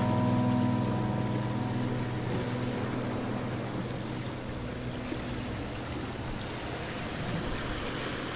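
Background music fading out, its held notes dying away over the first few seconds, under a steady rushing noise.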